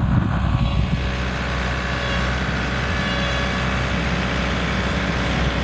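Snow Rabbit 3 compact snow groomer's engine running steadily as the tracked machine drives forward pushing snow with its front blade.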